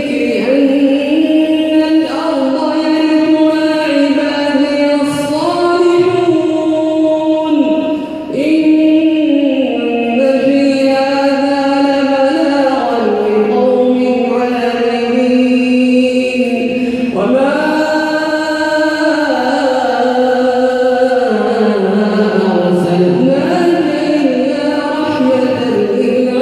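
A male reciter chants the Quran in Arabic. One voice sings long, drawn-out melodic phrases, its pitch gliding up and down, with a short breath about eight seconds in.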